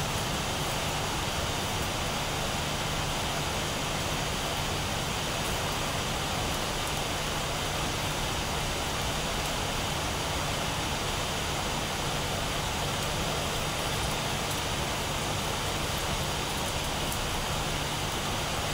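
Steady background machinery noise, an even rushing sound with a constant low hum, unchanging throughout.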